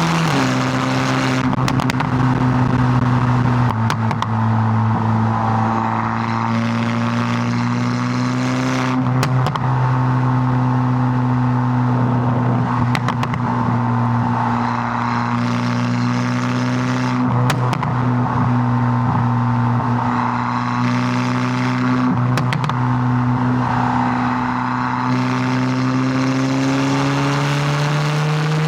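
Volkswagen MK8 GTI's turbocharged 2.0-litre four-cylinder running through a Milltek catback and downpipe, driven at mostly steady revs with several shifts in pitch. It climbs in pitch near the end, then drops abruptly.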